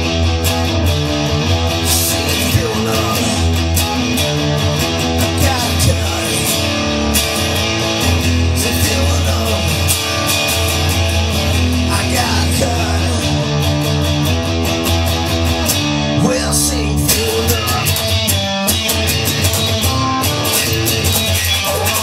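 Music with guitar, playing steadily and loud throughout.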